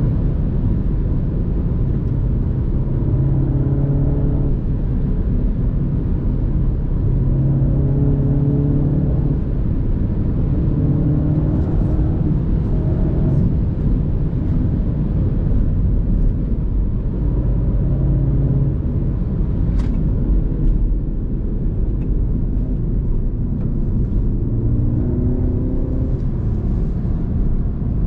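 Mini Cooper S F56's turbocharged four-cylinder engine heard from inside the car on its stock exhaust. Revs repeatedly rise and fall as the car drives through corners, over steady road and tyre rumble, with a sharp click about twenty seconds in.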